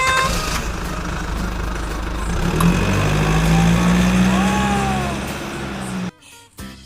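A vehicle engine runs with a steady low hum over a rushing noise. The hum rises a little in pitch through the middle and then cuts off abruptly about six seconds in.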